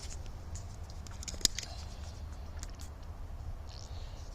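Low steady hum with a few faint scattered clicks, one sharper click about one and a half seconds in.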